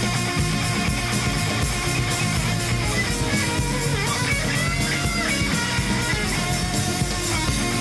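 Jazz-fusion band playing live: a lead line with bending notes over a moving bass line and busy drums.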